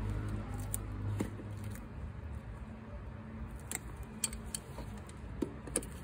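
Long-nose pliers clicking and scraping on a front crankshaft oil seal as it is twisted counter-clockwise in the timing chain cover to work it loose: a handful of short, sharp metal clicks over a low hum that fades after the first couple of seconds.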